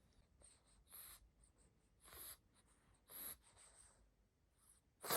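A pug's breathing: short, faint, hissy snuffles about once a second, the last one the loudest.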